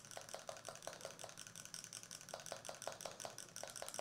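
Small metal whisk stirring liquid in a glass beaker, ticking lightly and quickly against the glass, several times a second with a short pause in the middle.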